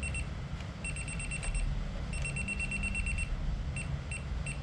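Non-contact voltage tester pen beeping in fast-pulsed high runs that stop and start as it is moved about the pump's power cord wires, signalling that it senses mains voltage.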